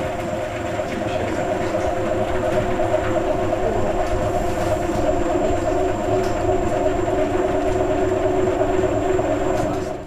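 Electric tangential honey extractor spinning six loaded honey frames in its stainless steel drum: a steady motor hum and mechanical running noise, getting a little louder over the first few seconds.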